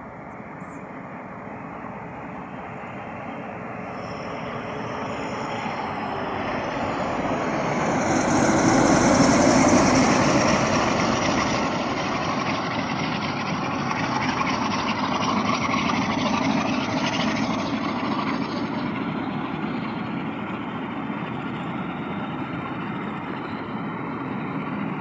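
West Coast Railways Class 47 diesel locomotive 47804, with its Sulzer V12 engine, approaching and passing close by. The sound grows louder to a peak about nine seconds in, then gives way to the steady noise of its coaches' wheels running over the rails.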